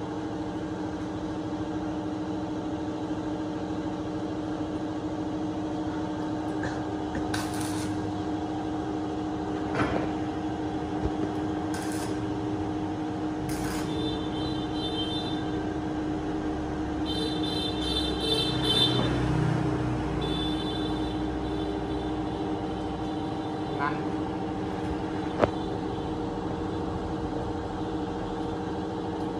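A steady machine hum holding several fixed tones, with scattered sharp clicks and knocks and a brief high rattle around the middle.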